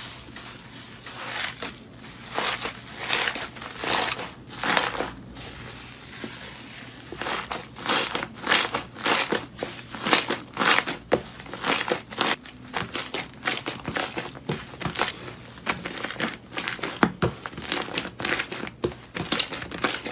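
Slime being squeezed and worked by hand: crinkling and crackling in quick irregular clusters of sharp crackles.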